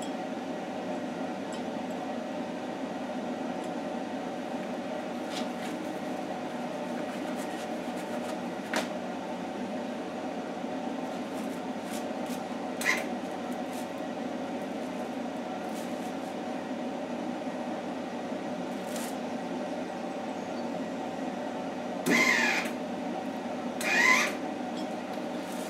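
A steady hum, then near the end two short crackling bursts of about half a second each: a wire-feed welder's arc striking briefly and sputtering out on a steel bracket, as failed tack attempts.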